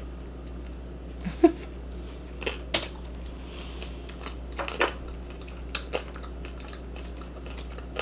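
Close-miked chewing and biting of crispy pan-fried, baked chicken dumplings: short crunchy clicks and wet mouth sounds every second or so, over a faint steady low hum.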